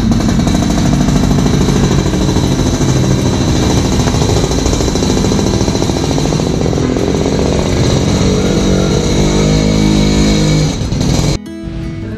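An engine running loudly with an uneven, shifting pitch as the revs change. It stops abruptly near the end.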